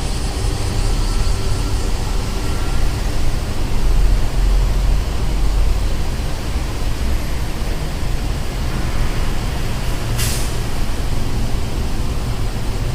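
City street traffic: a steady low rumble of passing vehicles that swells around four seconds in, with a short sharp hiss about ten seconds in.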